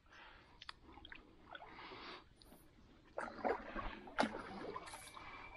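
Canoe being paddled: faint swishes and drips of water off the paddle, with scattered small knocks and clicks, growing louder with a few splashy strokes about three seconds in.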